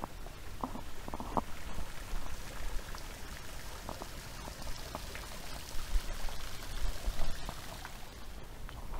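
Small creek water pouring and trickling over a low concrete spillway in a steady splashing rush, with a couple of low bumps about six and seven seconds in.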